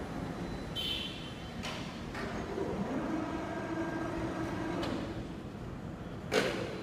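Electric crane hoist running with a steady hum while a heavy aluminium coil hangs from it in a sling, with a couple of brief squeaks and clicks. Near the end comes a single loud knock.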